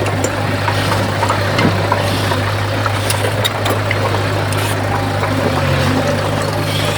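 Heavy diesel engine of an earthmoving machine running steadily at a low, even note, with scattered light clicks and knocks; the engine note shifts slightly about six seconds in.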